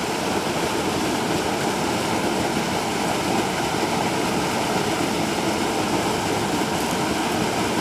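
Steady rush of water pouring over a spillway.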